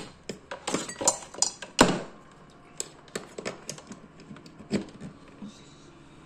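Scattered light clicks and knocks of kitchen things being handled, denser in the first two seconds, with one louder knock just under two seconds in. The blender motor is not running.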